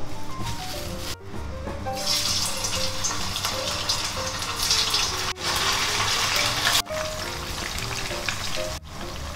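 Flour-coated catfish pieces frying in a pan of oil, a steady sizzle that sets in about two seconds in and is strongest through the middle, as the pieces go into the hot oil. Background music plays throughout.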